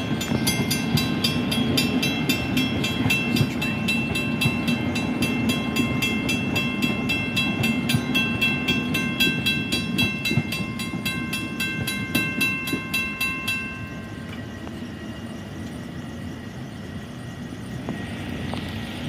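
Railroad crossing bells ringing in rapid, evenly spaced strokes over the low rumble of a Long Island Rail Road M7 electric train pulling away. The bells stop about 13 to 14 seconds in as the gates start rising, leaving a quieter steady hiss.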